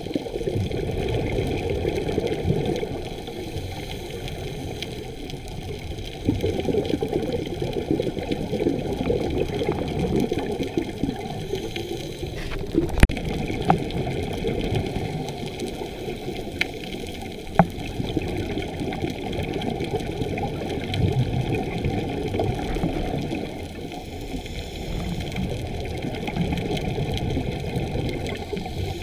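Muffled underwater noise during a scuba dive: a diver's regulator exhaust bubbles swell and fade every few seconds with each breath. A few sharp clicks near the middle.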